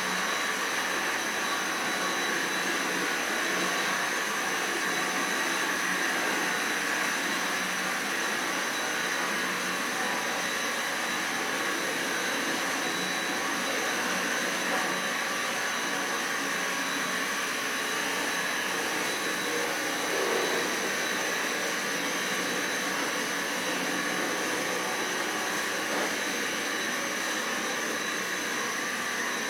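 Cordless stick vacuum cleaner running steadily on the floor, its motor giving a steady high whine over the rush of air.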